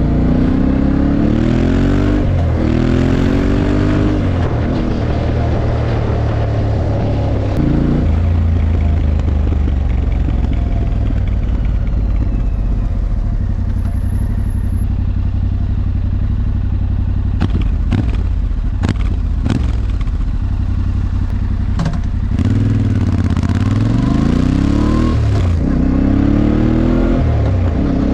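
Yamaha Ténéré 700's parallel-twin engine through an Akrapovič exhaust, pulling away through the gears, its note climbing and dropping back at each shift. It then runs low and steady for a long stretch, with a few sharp clicks, before climbing through the gears again near the end.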